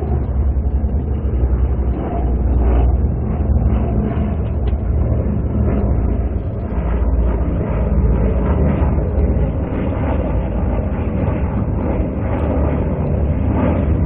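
Twin piston engines of a Bristol Beaufighter droning steadily, with mild swells, as the aircraft flies around and circles, on an original wartime recording with no treble.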